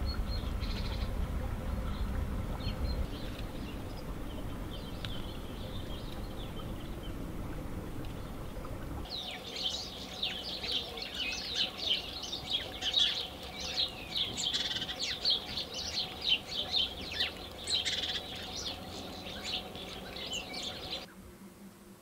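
A small songbird singing a long run of quick, high notes, starting about nine seconds in. Before that there are only a few faint chirps over a low rumble.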